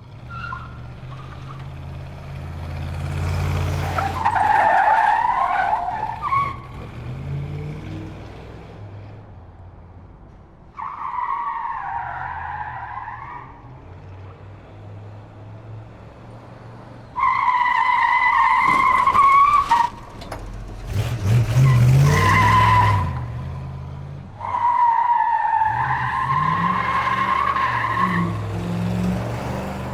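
Muscle car skidding over and over: its tyres squeal in about five separate wavering screeches of a few seconds each, with the engine rumbling low underneath and surging louder during the skids.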